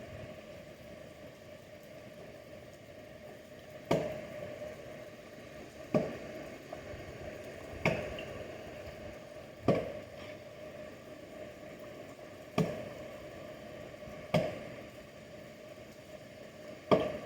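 Axe chopping into wood: seven separate strikes about two seconds apart, the first about four seconds in.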